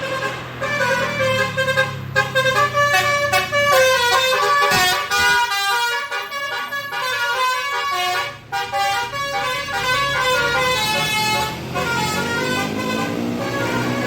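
Bus telolet horn, a multi-tone air horn, playing a quick tune of short, shifting notes over the bus's running engine. Near the end lower tones glide upward.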